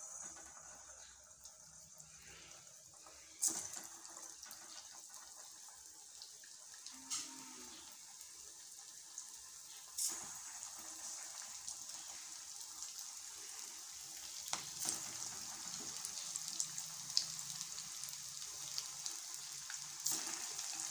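Hot oil sizzling as prawn balls deep-fry in a kadai: a steady, high hiss that grows louder as more balls go in, broken by a few short sharp crackles.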